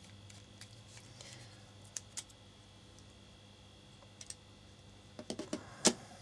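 Light metallic clicks and taps from a Zero Tolerance 0350 folding knife being taken apart with a small Torx screwdriver: a few scattered clicks, then a quick run of them near the end.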